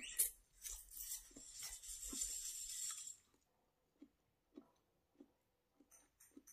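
A person eating ramen noodles close to the microphone: about three seconds of loud, noisy, hissing mouth sound with crackles, then steady chewing, roughly three chews every two seconds.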